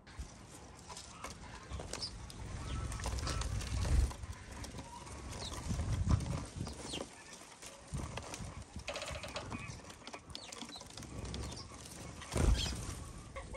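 House sparrows at a feeder, with chirps and many quick taps as beaks peck seed from the plastic trough. A few louder low thumps stand out.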